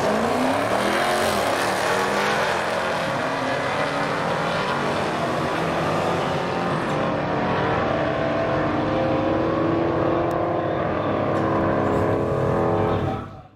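Modern HEMI V8 drag car accelerating hard down the strip, its engine pitch climbing and dropping through gear changes before settling into a steady run, then fading out near the end.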